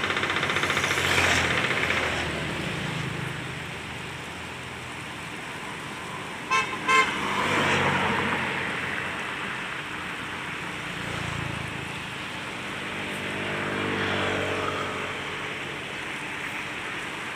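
A vehicle horn tooting twice in quick succession, two short beeps about half a second apart, over a steady background of passing road traffic.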